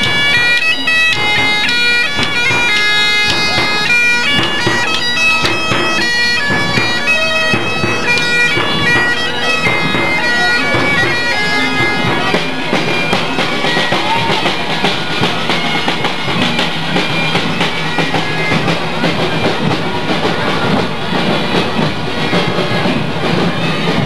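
Bagpipes playing a quick, stepping melody. About halfway through the melody fades, leaving a denser, noisier sound over a low steady drone.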